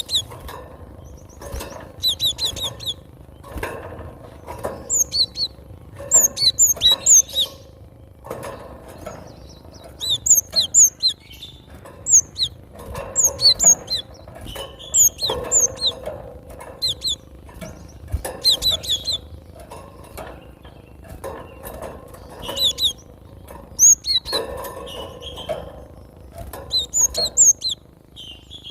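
Cinereous tit (gelatik batu) singing: repeated clusters of short, sharp, high notes every second or two, with lower knocks and rustling between them.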